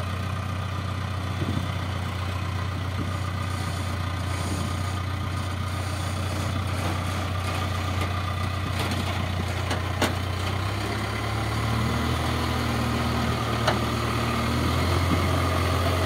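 CASE backhoe loader's diesel engine running steadily at low revs as the machine creeps up onto a lowboy trailer. A little past halfway the engine note shifts and grows louder as it climbs, with a couple of sharp clicks.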